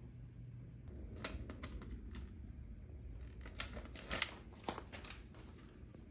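A sheet of paper crinkling and rustling in a baby's hands: a run of sharp crackles starting about a second in, densest and loudest near the end.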